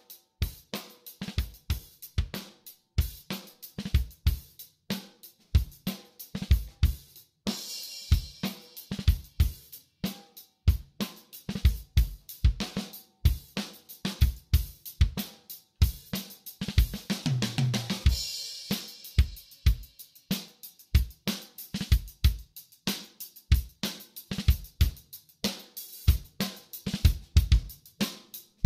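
A drum-kit recording (kick, snare, hi-hat and cymbals) played through a Biamp 1682 mixer channel strip's EQ section while its mid, treble and bass controls are boosted. The tone shifts as the knobs turn, with the highs brightening about a third of the way in and both highs and lows swelling a little past halfway.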